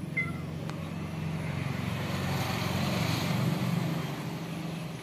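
An engine passing by, its noise swelling to a peak a little past the middle and then fading. A cat gives a short meow right at the start.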